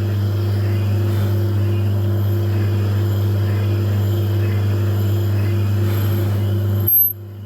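Metal lathe running steadily while a form tool cuts out the combustion bowl of a VW 1.9 TDI PD piston spinning in a 4-jaw chuck: a steady machine hum with a hiss of cutting. Near the end it breaks off with a short bump and drops much quieter.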